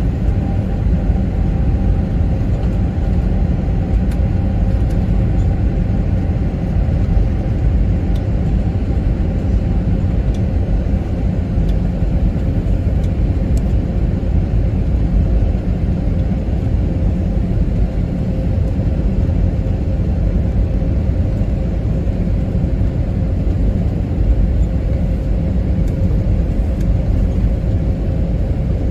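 Steady low rumble of a moving vehicle, with a faint steady hum running through it.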